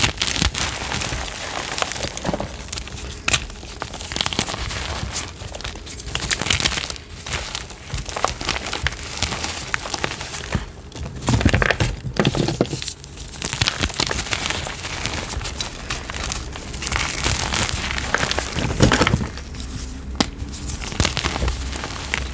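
Crumbly chalk being crushed, a dense run of crunches and crackles with louder bursts about eleven seconds in and near nineteen seconds.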